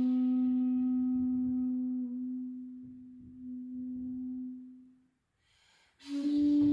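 A long 3.6 shakuhachi bamboo flute holding one low note that swells and fades out about five seconds in. After a short pause with a faint breath, a new note begins near the end with a breathy attack.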